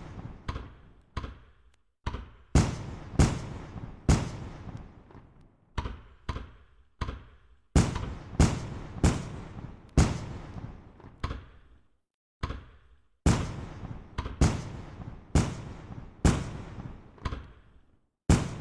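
Fireworks bursting overhead: a rapid string of sharp bangs, each trailing off in a long echoing tail, coming in clusters with brief silent gaps between them.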